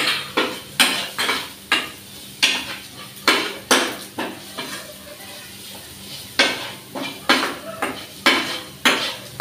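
Steel spatula scraping and knocking against a non-stick frying pan as chopped onion and tomato are stirred, in irregular clatters about one to two a second, with a faint sizzle of the vegetables frying in hot oil underneath.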